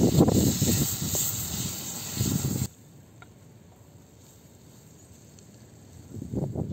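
A wooden spoon stirring noodles frying in a metal pan over wood-fire embers: scraping and sizzling. It stops abruptly about 2.7 s in and gives way to quiet outdoor background, and irregular scraping starts again near the end.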